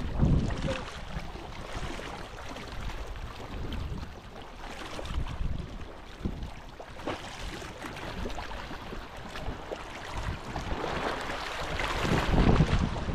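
Wind gusting over the microphone with sea water lapping around a small boat, plus a few faint knocks; the gusts grow stronger near the end.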